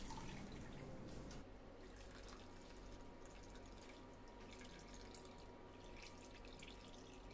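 Whey dripping and trickling faintly into a steel strainer as chhena wrapped in muslin cloth is squeezed by hand.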